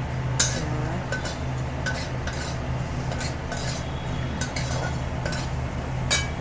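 A utensil scraping and clinking against a pan about twice a second, stirring vermicelli as it roasts in ghee, over a steady low hum.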